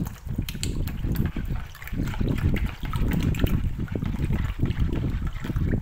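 Water poured from a plastic bottle splashing and gurgling into a plastic bowl of frothy liquid mixture while a metal spoon stirs it.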